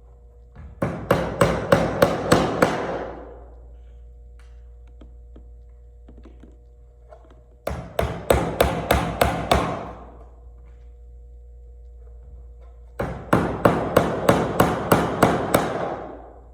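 Hammer driving small nails into a wooden toolbox kit: three quick runs of about seven strikes each, a few seconds apart.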